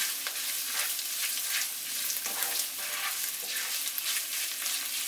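Ground beef, onions and tomato paste sizzling in a frying pan, with a slotted spoon stirring and scraping through the mince in repeated strokes as the tomato paste is worked in.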